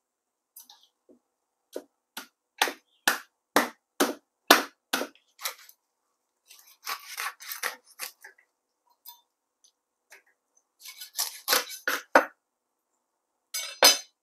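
Kitchen knife chopping a raw whole chicken into pieces on a thick wooden chopping block. A steady run of about nine chops, roughly two a second, comes first, then rougher cutting sounds and a quick cluster of chops, with one more chop near the end.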